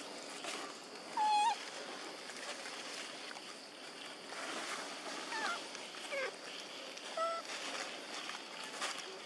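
Macaques giving short squeaky calls: one louder call about a second in, then several brief squeaks a few seconds later, over a steady rustling background.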